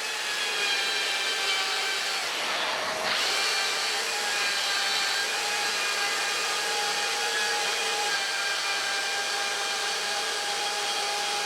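Bosch AdvancedCut NanoBlade saw running, its small chain blade cutting through melamine-faced chipboard: a steady motor whine with a brief shift in pitch about two to three seconds in.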